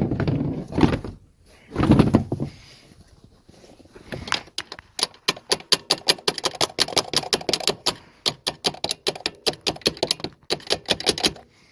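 Rapid run of light metallic taps, several a second, on the top cap of an Arctic Cat 366 ATV's carburetor, knocked to free a float needle that is suspected of sticking closed and starving the engine of fuel. A couple of heavier knocks come in the first two seconds.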